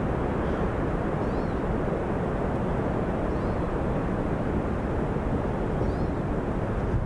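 Steady rushing roar of the Yellowstone River and its falls, heard from the canyon rim far above, with faint high chirps a few times.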